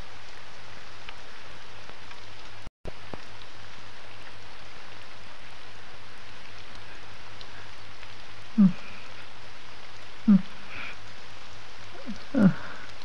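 A man sobbing in several short, catching bursts from about two-thirds of the way through, over a steady hiss. The sound cuts out completely for a moment a few seconds in.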